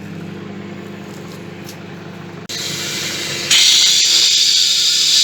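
Microwave oven running with a steady hum. About two and a half seconds in, a loud hiss starts from the grapes heating inside, growing louder about a second later.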